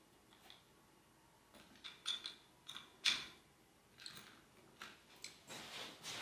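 Scattered small clicks and knocks of hands fitting and fastening a GPS mount at a motorcycle's cockpit, the sharpest about three seconds in. A short rustle follows near the end.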